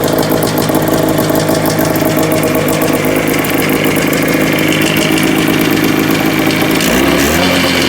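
Arctic Cat Puma's Kawasaki-built T1C 340 two-stroke snowmobile engine running steadily, firing now that a replacement CDI unit has cured its no-start. Near the end it revs up and holds a higher speed.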